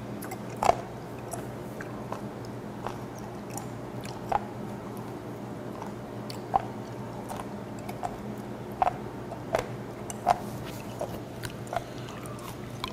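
Close-up chewing of a piece of fermented skate nose: slow, deliberate chewing of the tough, gum-like cartilage, with a soft crunchy click about once a second over a steady low hum.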